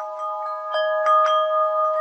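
Metal bell chimes struck in an irregular run, the notes overlapping and ringing on. A stronger cluster of strikes comes about a second in.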